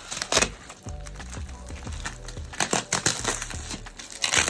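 Packaging of a large parcel being handled: several short bursts of crunching and crackling, about a third of a second in, again around two and a half to three seconds in, and near the end.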